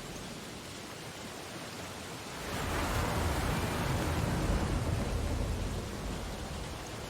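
Ocean surf: a steady wash of water, with a wave building about two and a half seconds in, running loudest for a couple of seconds with a deep rumble, then easing back.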